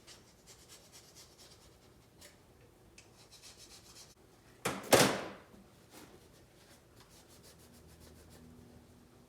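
Faint rubbing and scraping strokes from hand work on metal lathe parts, with one short, loud burst of hiss about five seconds in that dies away within about half a second.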